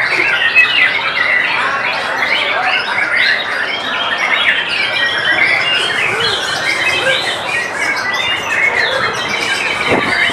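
Many caged songbirds singing over one another in a dense, unbroken tangle of whistles, trills and chatter, among them white-rumped shamas.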